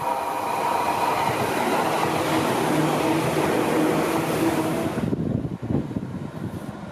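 Yellow Seibu 2000 series electric train passing close by, steel wheels running over the rails with a steady motor hum. The sound drops off suddenly about five seconds in, leaving a fainter rumble and wind on the microphone.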